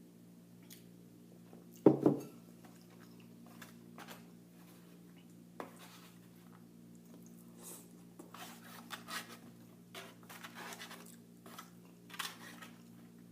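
Eating sounds: a single loud knock about two seconds in, then a utensil clicking against a takeout container and crunchy chewing over the last five seconds or so, over a steady low hum.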